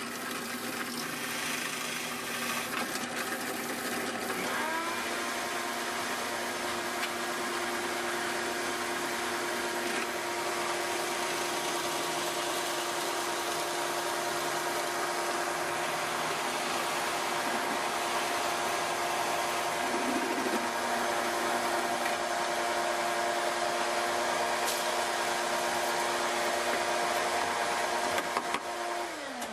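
Drill press motor running steadily as it bores a 3/4-inch hole in wood, its pitch stepping up about five seconds in. Near the end the press is switched off and winds down, the tones falling away.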